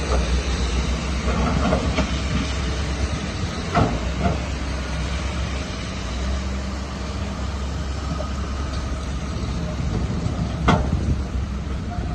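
Heavy diesel earthmoving machinery running steadily with a low rumble, with a few sharp metallic clanks, one about four seconds in and a louder one near the end.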